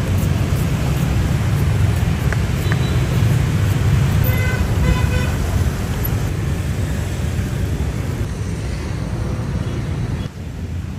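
Steady low rumble of passing vehicles, with a short pitched note about four to five seconds in.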